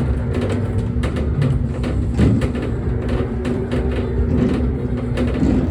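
1990s Jolly Roger bulldozer coin-operated kiddie ride running: a steady rumble with a low hum and many small clicks and rattles.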